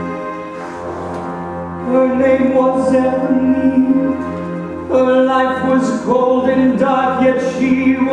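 Theatre pit orchestra playing slow, sustained music, swelling louder about two seconds in and again about five seconds in.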